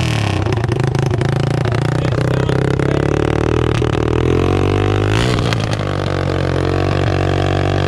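Yamaha TTR225's single-cylinder four-stroke engine running steadily and loudly on its first start after a rebuild, with a brief change in pitch about five seconds in.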